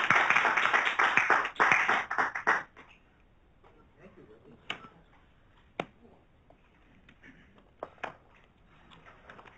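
Audience applauding at the close of a lecture, dying away about two and a half seconds in. After that the room is quiet apart from a few scattered small knocks and taps.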